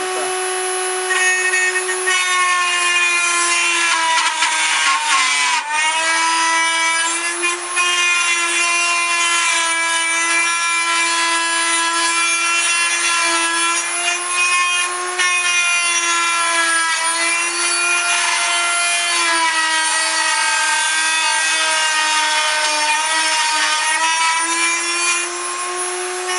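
A homemade rotary-burr grinding jig's electric motor runs with a steady high whine while a flat forged metal pattern is pressed against the spinning burr, with a rasping grinding noise. The pitch sags under the load, most deeply about five seconds in, and rises back near the end as the load eases.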